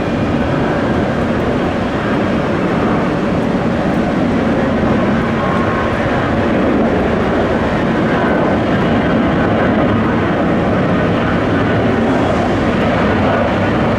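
Jet airliner engines, a loud, steady rush of noise that grows slightly about halfway through.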